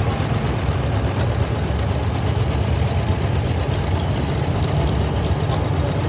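Antique Farmall farm tractor's engine running steadily at low speed as the tractor drives slowly past, with a low, even beat.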